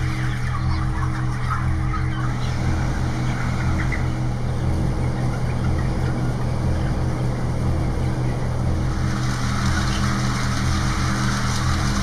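A low, steady drone with a higher note pulsing on and off about twice a second, growing fuller about nine seconds in, over faint cheeping of crowded broiler chickens.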